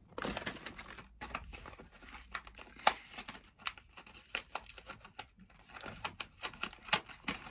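A plastic-and-cardboard blister pack of pens being torn open and crinkled by hand: a run of irregular crackles and snaps, with one sharper snap about three seconds in.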